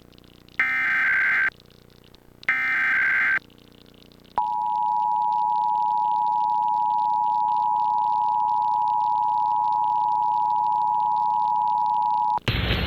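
Two Emergency Alert System SAME header data bursts, each a harsh warbling digital screech about a second long, a second apart. After a short gap comes the EAS two-tone attention signal (853 and 960 Hz), held steady for about eight seconds. It cuts off suddenly into a burst of hiss near the end.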